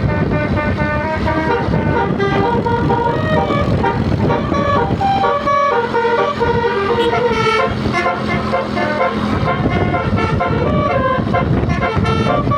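Tour bus's telolet basuri musical horn playing a tune of short, quickly changing notes, over a steady low rumble.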